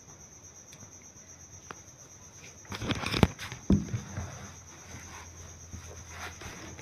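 Low background hiss with a steady, faint high-pitched whine, and a brief patch of knocks and rustling about three seconds in.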